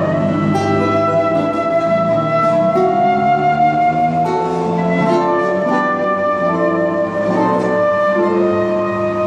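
Silver concert flute playing a slow melody in long held notes, over nylon-string guitar accompaniment.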